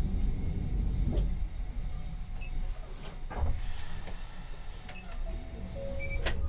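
Low steady rumble inside the cab of a Sapporo streetcar while the tram stands at an intersection, with a few sharp clicks and a short whine near the end.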